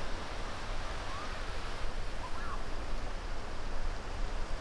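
Ocean surf washing onto a beach: a steady hiss of waves.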